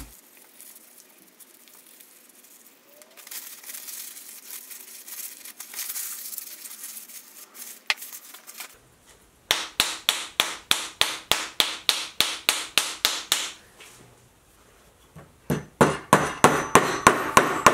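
A cloth rubbing on a steel hammer head, then two runs of rapid light hammer taps on steel, about five a second. The second run, near the end, comes from a brass-faced hammer striking the steel head and rings.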